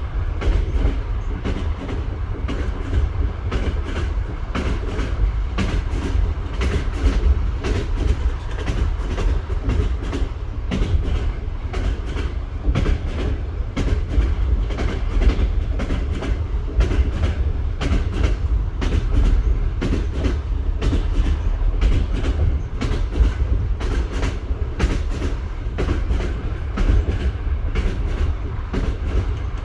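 A moving train's wheels knocking over the rail joints without pause, many clicks over a steady low rumble.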